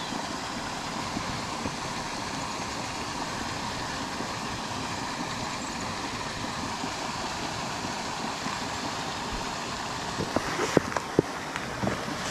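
Fountain aerator in a lake churning the water, a steady rushing noise, with a few light clicks and knocks near the end.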